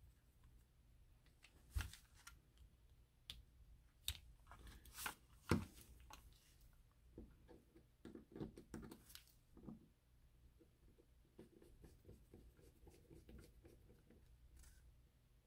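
Faint clicks and scrapes of a precision screwdriver turning small screws into a model locomotive's motor mount and chassis. A few sharp ticks come in the first six seconds, softer scraping and fiddling around eight to ten seconds.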